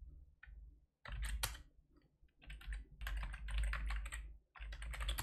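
Typing on a computer keyboard: quick runs of keystrokes in three bursts with short pauses between.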